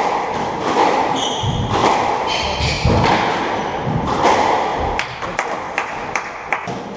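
Squash rally: the ball cracks sharply again and again off rackets and the walls, with heavy footfalls and sneakers squeaking on the wooden court floor. The cracks come thick and fast in the second half.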